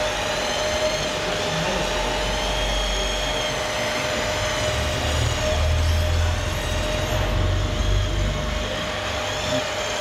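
Hydraulic pump of a radio-controlled Komatsu PC490LC excavator model whining steadily, with higher whines rising and falling as the boom and bucket move under load.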